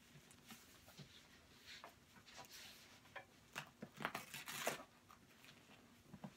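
Faint rustling and scraping of a fabric seat cushion cover being pulled down over a car seat's backrest, with a run of louder rasping noises about four seconds in.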